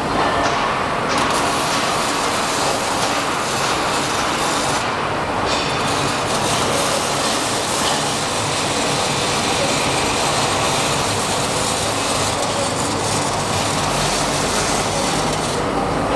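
Robotic arc welding: welding arcs hissing and crackling steadily, with brief breaks in the hiss near the start and about five seconds in.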